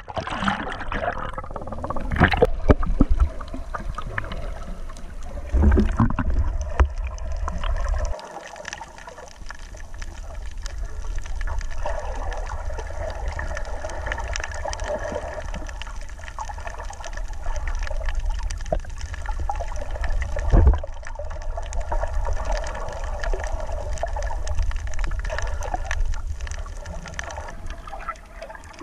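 Muffled water sloshing and gurgling picked up by a camera under the water's surface, over a steady low rumble, with a few louder surges.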